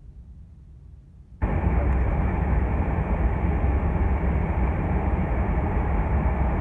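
Boeing 747-400 cabin noise: a faint low rumble, then about a second and a half in, a loud, steady, deep roar of the engines and airflow heard from inside the cabin, starting abruptly.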